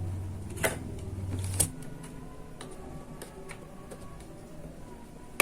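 An 8 GB DDR4 SO-DIMM RAM module being pushed back into a laptop's memory slot and clipped in: a few sharp plastic-and-metal clicks, two in the first two seconds and one at the very end, over faint handling noise. A low hum runs through the first second and a half.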